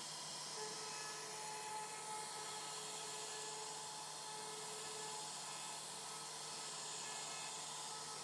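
CNC router spindle running steadily, a high-speed whine over a hiss.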